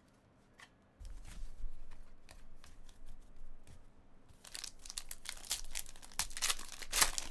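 A trading-card pack wrapper being torn open and crinkled. The rustling starts about a second in and gets louder and crackly over the last three seconds.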